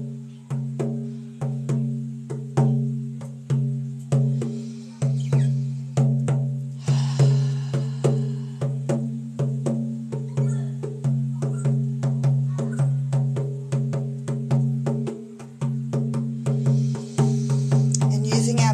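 Large rawhide frame drum beaten in a steady, even rhythm, the deep boom of each stroke ringing on into the next: a repetitive shamanic journey beat.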